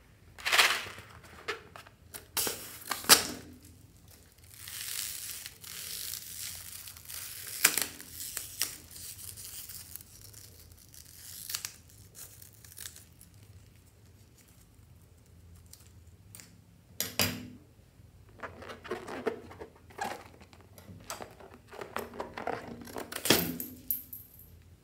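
A rubber balloon handled and snipped open with scissors, then its skin peeled away. This gives irregular crinkling and tearing sounds with sharp snips, and a longer hissing stretch early on.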